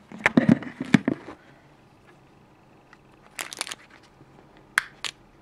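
Close handling noise: a plastic bag crinkling as a small action camera is picked up, then fingers scraping and clicking at the camera's plastic battery cover while it is pried at. The first burst is the loudest, with a shorter burst about three and a half seconds in and two sharp clicks near the end.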